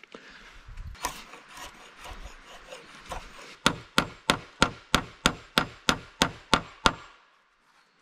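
A hammer nailing a horizontal hazel pole to a wooden roof frame: a few light, uneven taps and scraping, then about eleven sharp, evenly spaced blows, roughly three a second, that stop about seven seconds in.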